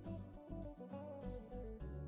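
Background music: an instrumental track with guitar over a bass line.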